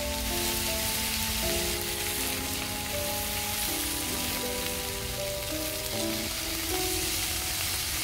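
Meat frying in an oiled pan on a portable gas stove, a steady sizzle as it is turned with chopsticks. Soft background music of held notes plays underneath.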